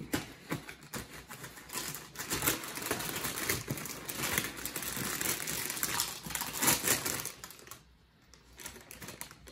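A cereal box being opened, its inner plastic bag crinkling and rustling in a dense run of small crackles that stops about eight seconds in.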